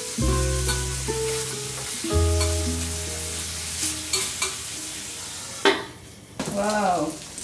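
Minari (water parsley) and meat sizzling on the hot Balmuda The Plate Pro griddle plate, with soft plucked-guitar music over it. A little before six seconds in there is a click as the steel lid goes on, and the sizzle drops away.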